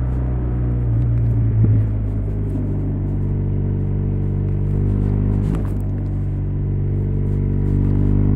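BMW R1200RS boxer twin engine running under way at a steady cruising pitch, with a brief shift in engine note about two seconds in.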